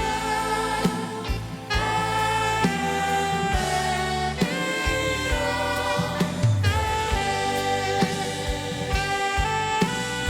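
Live church worship band playing an instrumental passage of a gospel hymn, with drum hits under held melody notes.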